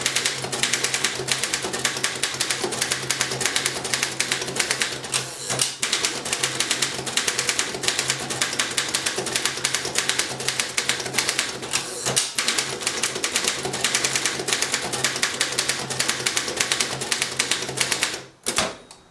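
1926 Underwood No. 5 manual typewriter typed fast and steadily: rapid key and typebar strikes, with brief pauses about 6 and 12 seconds in, stopping shortly before the end. A low steady hum runs underneath.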